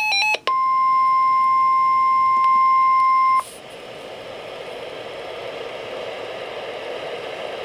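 Tail of a NOAA Weather Radio SAME data burst as a brief warbling two-tone chirp, then the steady 1050 Hz weather-radio warning alarm tone for about three seconds. The tone cuts off abruptly, leaving receiver hiss.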